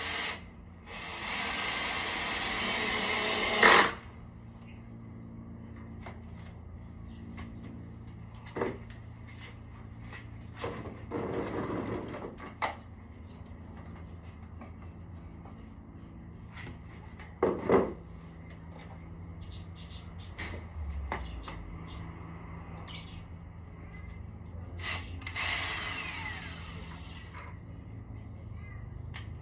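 A power tool runs for about three seconds, about a second in, and stops with a sharp knock. It runs again for about two seconds near the end. In between come scattered knocks and clatter from handling tools and materials.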